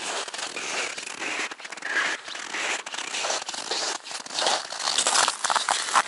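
Footsteps crunching in frozen snow, one step after another.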